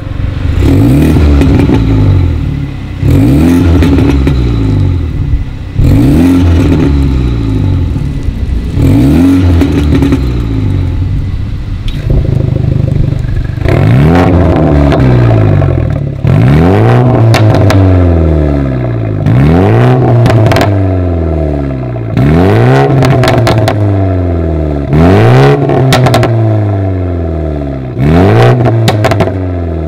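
BMW G20 320i's B48 2.0-litre turbocharged four-cylinder breathing through a catless Fi valved exhaust, revved in repeated blips that each rise sharply and fall back. For the first dozen seconds the exhaust valves are closed. From about thirteen seconds in they are open, and the blips sound fuller and brighter, with crackles as the revs drop in the last few.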